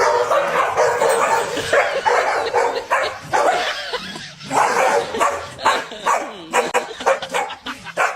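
A dog barking over and over, the barks coming quicker and shorter near the end.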